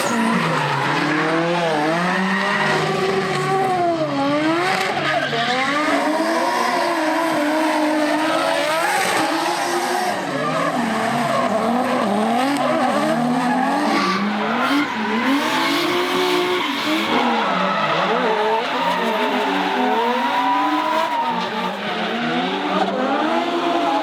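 Drift cars sliding sideways: engines revving hard, pitch swinging up and down every second or so, over tyres squealing and skidding on the track.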